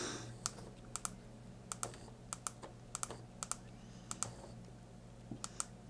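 Small plastic buttons on an AODELAN handheld Bluetooth camera remote clicking as they are pressed to zoom the lens in and out. The clicks come in a light, irregular series, many in quick pairs.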